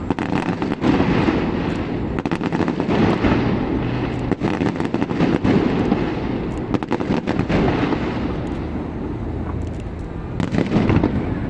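Fireworks display going off: rapid overlapping bangs and crackling over a continuous rumble, thinning out around two-thirds of the way through, then a fresh cluster of bangs near the end.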